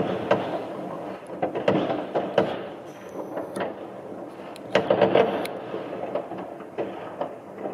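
New Year's Eve fireworks: a continuous run of overlapping firework bangs and crackles, with a louder cluster of reports about five seconds in.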